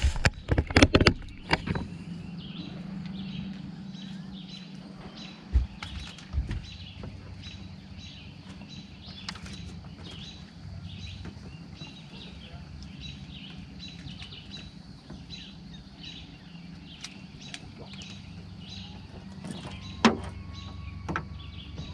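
Knocks and thumps from handling gear and fish in a boat, the sharpest about twenty seconds in, over a steady low hum and a high bird chirp repeated at an even pace. A faint rising tone comes in near the end.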